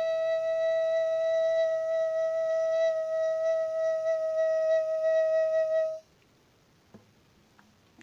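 A single sustained electric guitar note, held steady without fading for about six seconds, then cut off suddenly. A few faint clicks follow near the end.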